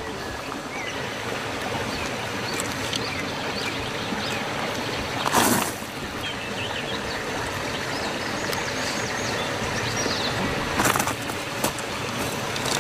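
Small birds chirping over a steady outdoor hiss, with two brief louder bursts of noise, about five and eleven seconds in.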